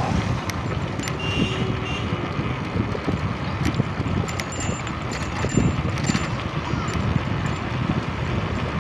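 Steady running and road noise of a moving vehicle, with wind on the microphone and a few light clicks or rattles.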